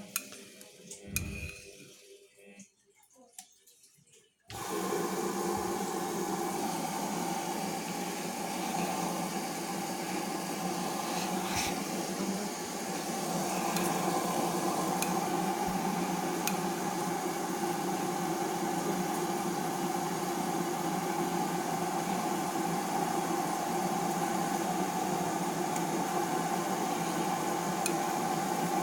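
LG WD-80155NUP front-loading washing machine on its delicate wash programme: after a few faint clicks, a steady running noise of the machine and water starts suddenly about four and a half seconds in and carries on evenly.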